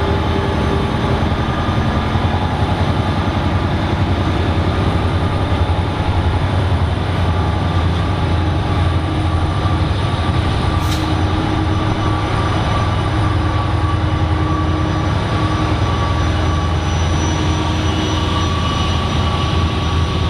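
EMD GT46MAC (WDG4) diesel locomotive's turbocharged two-stroke V16 engine running steadily at high throttle after notching up: a loud, steady low drone with a high turbocharger whine over it.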